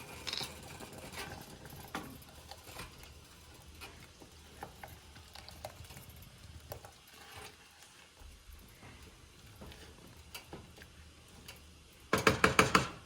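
Faint, scattered small clicks and taps of kitchen handling while coconut milk is added to a pot.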